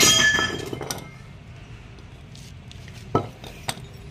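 A sharp metallic clink with a bright ringing that dies away over about a second, then two light metal clicks near the end: hand tools and small steel parts handled on the concrete floor while a steering rack is reassembled.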